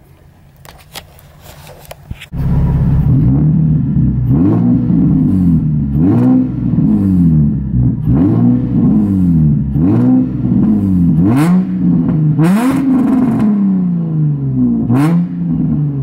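Nissan 350Z's 3.5-litre V6 engine, heard after a couple of quiet seconds, idling and then revved again and again in short throttle blips, the pitch sweeping up and back down about once every second or so.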